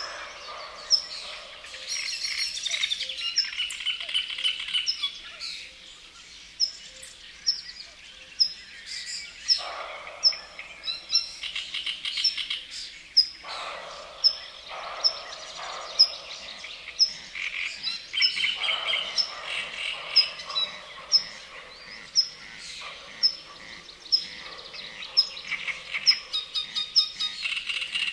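Several songbirds singing together. One gives a short, sharp high note about once a second over busier trilling phrases from other birds, with frogs croaking faintly underneath.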